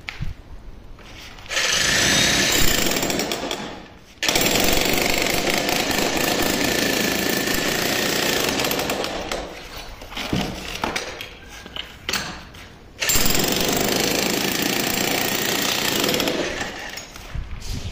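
Elephant Pro 24 kg corded electric demolition hammer breaking up a concrete slab. It runs in three long bursts with quieter pauses between them.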